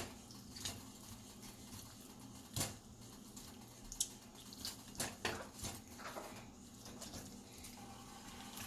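Faint, scattered clicks and light taps of kitchen utensils on cookware, about a dozen over several seconds.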